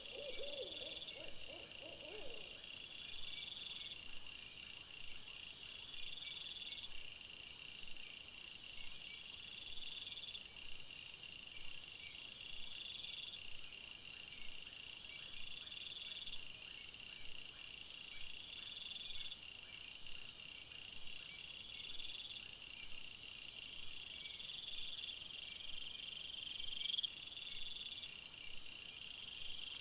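Night insects calling in a steady high trill that swells into chirping phrases every few seconds. In the first two seconds a lower, repeated animal call overlaps them.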